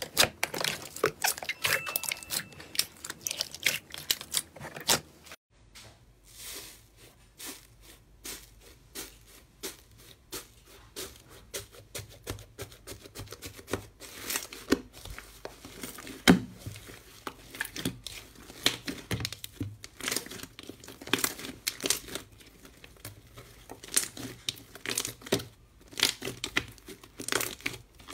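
Hands pressing and squeezing slime, full of sharp clicks, pops and crackles. First a glossy dark clear slime in a plastic tub with dense crackling; about five and a half seconds in it cuts to a textured blue slime in a metal tray, kneaded with sparser crinkling crackles.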